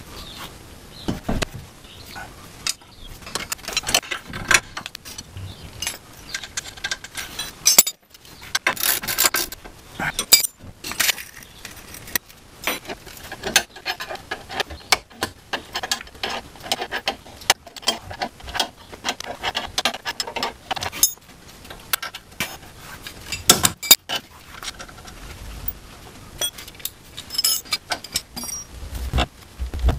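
Metal hand tools and a scissor jack being worked under a car's front suspension: irregular clinks, clatters and clicks of steel on steel, with denser bursts of clatter about a third of the way in and again near the end.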